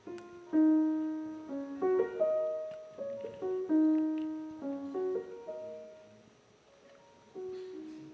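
Steinway grand piano played slowly and softly: a quiet melody of single notes, each left to ring and fade, that pauses about six seconds in before one last note sounds.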